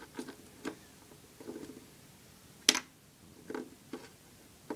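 A few scattered clicks and light taps of buckshot pellets being handled and dropped into a shotgun shell, with one sharp click about two and a half seconds in.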